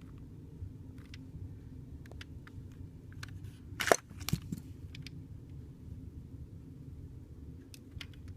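Plastic clicks from a custom Lego blowback pistol being handled. A sharp snap comes about four seconds in, with a second one just after, as the mechanism is worked.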